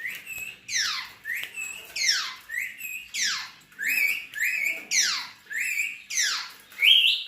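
Pet parrots calling over and over, about two calls a second: short whistles that rise and hold alternate with long screeches that sweep sharply downward.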